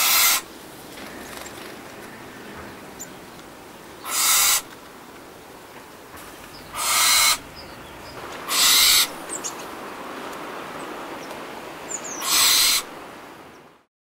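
Owl screeching: five harsh, hissing screeches, each about half a second long, a few seconds apart, over a steady background hiss. The sound fades out near the end.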